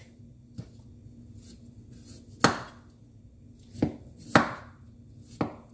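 Kitchen knife cutting fresh ginger root on a wooden cutting board: a handful of separate sharp chops at uneven intervals, the loudest about halfway through and near the end.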